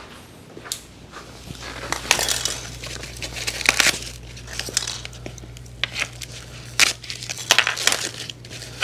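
Clicks, knocks and rustling from the mobility scooter's plastic body panels being handled and worked loose by hand.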